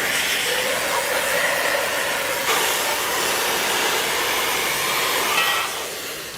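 Steady loud hiss of metal-cutting work on scrapped military equipment, with a faint wavering tone under it; the sound shifts abruptly about two and a half seconds in and fades slightly near the end.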